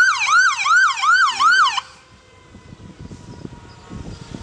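Ambulance siren in a fast yelp, its pitch sweeping up and down about three times a second. It cuts off suddenly about two seconds in, leaving low engine and street noise.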